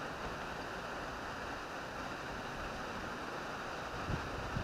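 Steady rushing noise of water pouring out of the dam's outlet into the tailwater, with a couple of short low bumps near the end.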